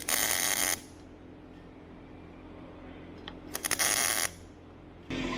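Two short MIG tack welds on steel plate, each a burst of crackling arc lasting under a second, about three seconds apart.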